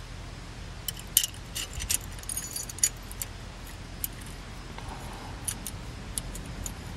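Light metallic clicks and clinks at an irregular pace, as a steel anti-rattle clip and brake pad are worked into place on a disc brake caliper by hand.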